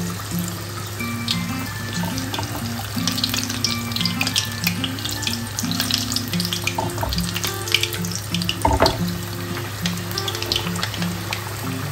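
Gram-flour-battered green chillies deep-frying in hot oil, a continuous sizzle with many small crackles and pops. Background music with a repeating melody plays over it.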